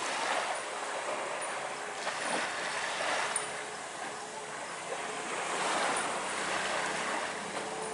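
Small, gentle waves lapping on a sandy shore, the wash swelling and easing every few seconds.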